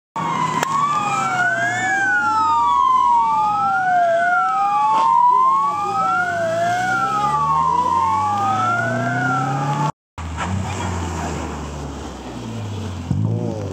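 A siren wailing up and down in slow sweeps over a running vehicle engine, cut off sharply about ten seconds in. After the cut a car engine revs and drops.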